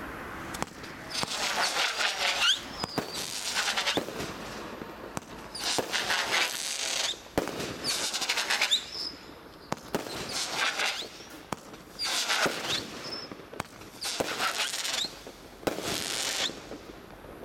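Venom 16-shot firework cake (barrage) firing its shots one after another: each sharp launch pop is followed by a crackling star burst, about eight shots in all, roughly one every one and a half to two seconds.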